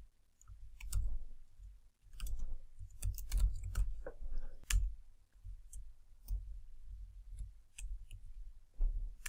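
Typing on a computer keyboard: irregular key clicks in short runs with pauses between them.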